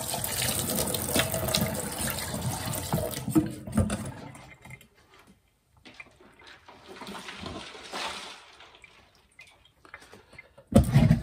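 Tap water running into a stainless steel sink, with small clinks and splashes, for about four and a half seconds, then stopping. A fainter hiss follows a couple of seconds later, and a sudden loud bump comes near the end.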